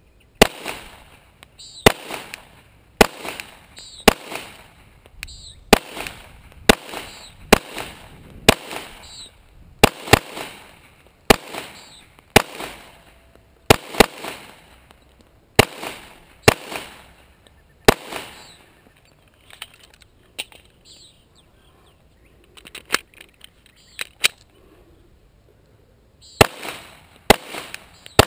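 9mm Glock pistol firing shot after shot, each a sharp crack, at an uneven pace of about one a second. Past the middle there is a stretch of several seconds with only a few weaker cracks, then a quick string of shots again near the end.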